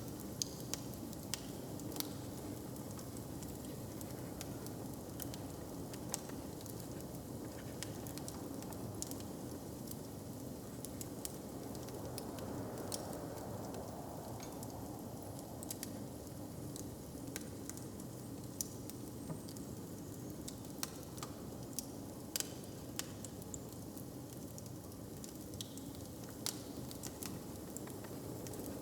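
Wood fire crackling, with sharp irregular pops over a steady low hiss and rumble.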